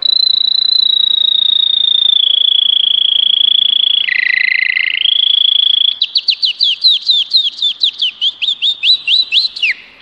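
A man whistling an imitation of a Belgian canary's song: a long, high trilled note, a brief lower two-tone stretch about four seconds in, then from about six seconds a fast run of short rising whistled notes, about five a second.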